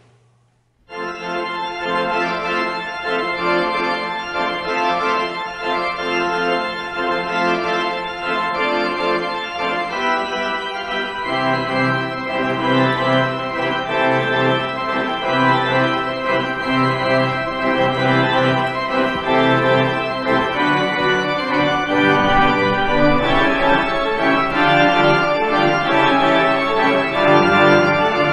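Organ postlude: sustained chords start about a second in, and a deeper bass line joins about eleven seconds in.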